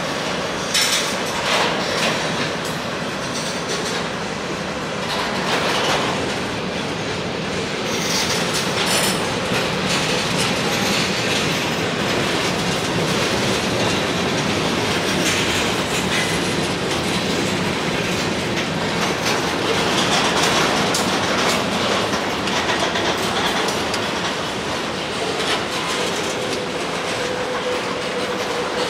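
Freight cars of a mixed manifest train rolling past close by: steel wheels clacking over rail joints over a steady rolling rumble. A faint steady whine comes in near the end.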